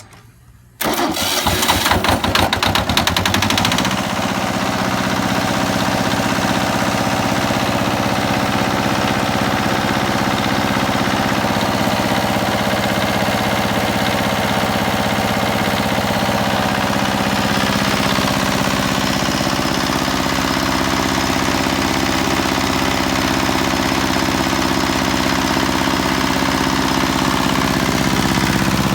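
Diesel generator cold-started: the engine cranks and fires about a second in, rough for roughly three seconds, then settles into a steady run.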